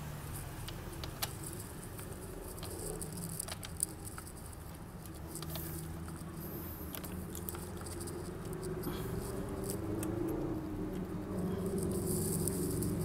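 Scattered light metallic clicks and taps of a 10 mm socket wrench and loose bolts as the radiator-cover bolts of a motorcycle are undone. A low background rumble grows louder in the second half.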